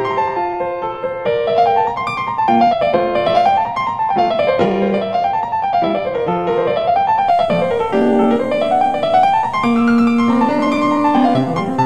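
Background piano music, with quick runs of notes rising and falling over and over above lower held notes.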